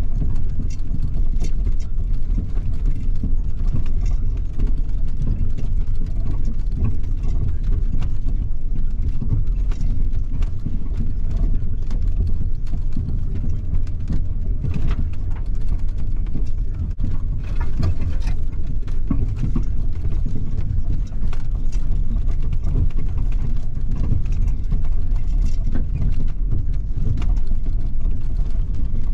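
1996 Ford F-150 pickup driving on a snowy trail, heard from inside the cab: a steady low engine and drivetrain rumble, with scattered light clicks and knocks.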